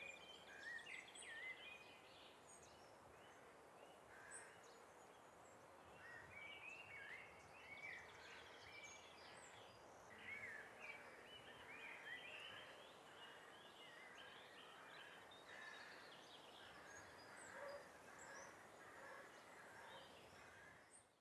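Faint birdsong: many short chirping and warbling calls over a soft, steady outdoor hiss.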